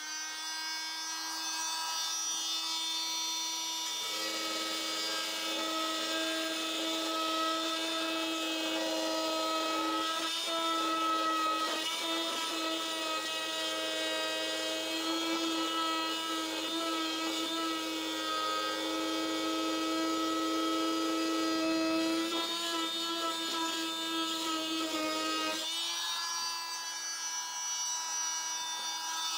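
Fein MultiMaster oscillating multi-tool running with a steady high hum. From about four seconds in, its segment blade grinds along a tile grout joint, adding a rougher, lower grinding sound that stops about three seconds before the end, when the blade comes off the joint and the tool runs free.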